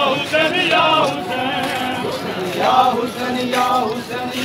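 A crowd of men chanting together, their voices rising and falling in a sung rhythm.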